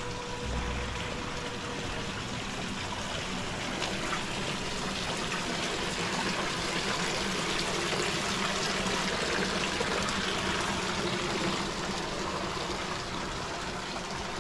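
Water trickling and splashing from the spouts of a bronze fountain vessel into a stone basin and the small bowls set in it. It runs steadily and grows a little louder in the middle.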